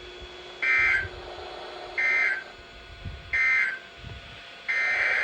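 Emergency Alert System SAME end-of-message data bursts, the sign that the tornado warning broadcast is over: three short, identical, raspy two-tone digital bursts about a second and a half apart. Near the end a longer burst of the same data tone begins, the header of the next alert.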